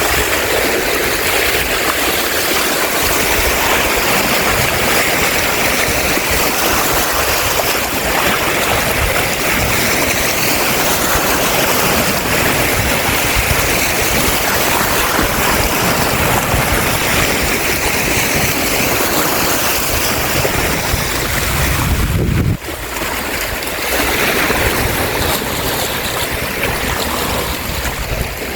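Lake Michigan waves washing onto the shore, a steady loud rush of surf with wind buffeting the microphone. The sound drops abruptly about three-quarters of the way through and carries on a little quieter.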